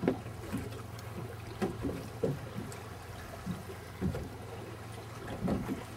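Fishing boat under way: a steady low engine hum, with irregular low thumps of water slapping the hull and wind on the microphone.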